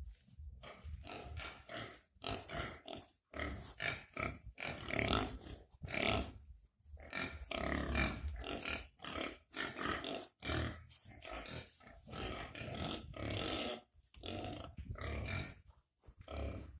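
Pigs grunting in a close, rapid run of short calls, one after another.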